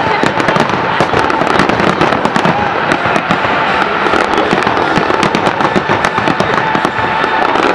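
Fireworks display: many aerial shells bursting in quick, overlapping succession, a dense, unbroken barrage of sharp cracks and bangs.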